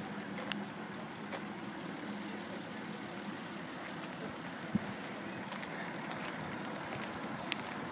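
Y-class diesel-electric locomotive idling in the distance, a steady low engine rumble with a faint hum, and a single short tick about five seconds in.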